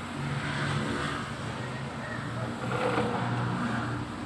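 A motor vehicle engine running, its pitch shifting up and down, louder about three seconds in.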